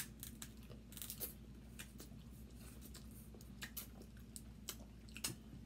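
Cooked crab leg shells being cracked and pulled apart by hand: irregular sharp little cracks and snaps, a few louder ones around a second in and near the end, over a faint low hum.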